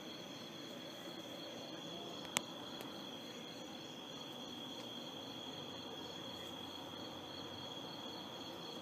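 A steady high-pitched trilling whine over a faint hiss, with one sharp click about two and a half seconds in.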